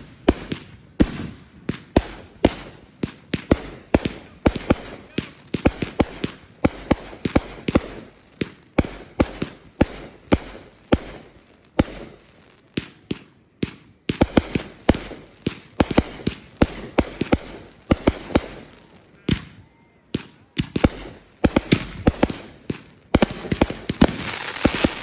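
Fireworks going off in quick succession: dozens of sharp bangs, several a second, with a couple of short lulls. Near the end comes a denser crackling volley.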